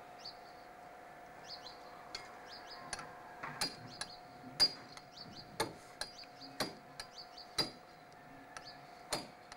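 Hammering on a toy wire truck's axle as its wheels are fitted: sharp knocks about once a second, starting about three seconds in. Small birds chirp over it throughout.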